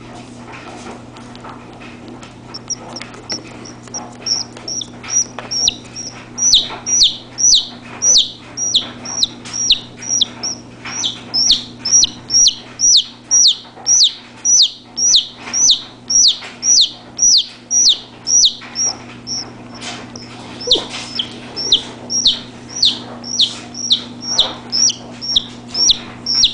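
A chick peeping over and over, short high calls that each slide downward in pitch, about two a second, starting faint and growing loud a few seconds in.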